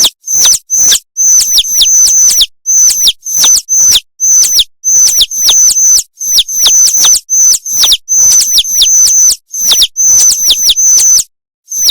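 Rapid run of high-pitched chirps, each dropping in pitch, about three a second, like a bird tweeting, stopping near the end.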